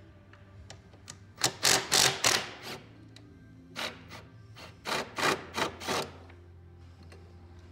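Cordless 3/8-inch-drive impact driver hammering in short bursts, a cluster about one and a half seconds in and more around four to six seconds, working a pressure washer pump's mounting bolt loose.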